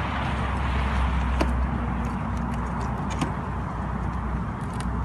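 Metal hive tool prying a honey frame loose between the wooden top bars of a beehive, with a few sharp clicks and cracks about a second and a half in, again around the middle, and once more near the end. A steady low rumble runs underneath.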